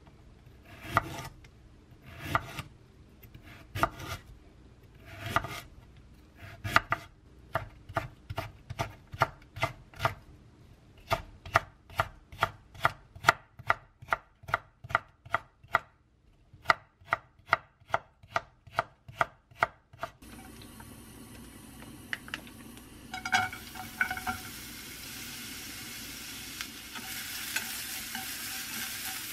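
Chef's knife cutting a carrot on a wooden cutting board. It starts with slow single slices, then quickens into steady julienne chopping at about three strokes a second, with a short pause. About twenty seconds in, it gives way to the carrot strips sizzling in a frying pan, with a few clinks a little later.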